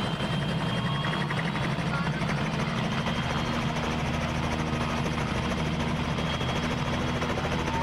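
Small two-bladed Robinson helicopter running on the ground with its rotor turning: a steady engine note under a fast, even beat of the blades.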